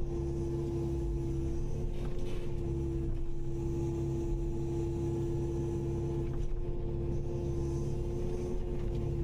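Kubota KX080-5 excavator's diesel engine running steadily with a constant hum, plus a couple of faint knocks.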